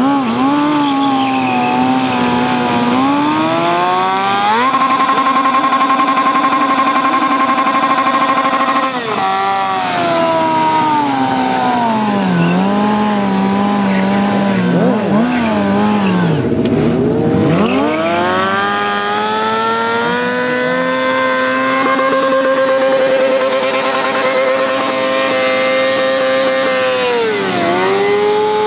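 Yamaha R6 sportbike's inline-four engine held at high revs while the rear tyre spins in a burnout. The revs hang high for several seconds at a time, dropping away and climbing again a few times.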